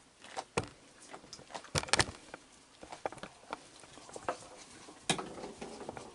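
Irregular clicks and knocks of raccoons moving and feeding on a wet wooden deck, with a loud cluster of knocks about two seconds in and another sharp knock just after five seconds.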